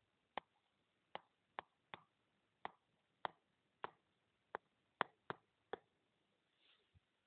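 Sharp, irregular clicks of a stylus tip tapping on a tablet's glass screen, about two a second, as a word is handwritten stroke by stroke.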